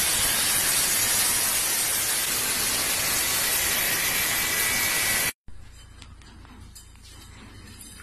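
Angle grinder with a cut-off disc cutting through a car's steel sill panel, a loud steady grind. It stops abruptly a little over five seconds in, giving way to much quieter background noise.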